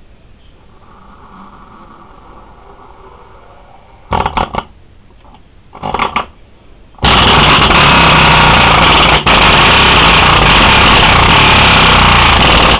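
Subwoofer overdriven at full volume to wreck it: two short blasts, then a continuous, heavily distorted, rattling bass that cuts out for an instant midway.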